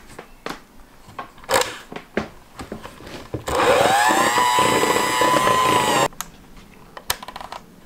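Electric hand mixer beating powdered-sugar and butter frosting: a few clicks and knocks, then about three and a half seconds in the motor starts with a rising whine, runs steadily for about two and a half seconds, and cuts off suddenly.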